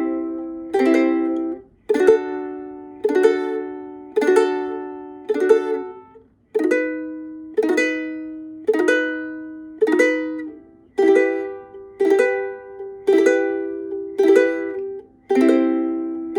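Ukulele strummed slowly, one chord about every second, each left to ring and fade; the same chord is played about four times before changing to the next, as in a chord-change practice drill.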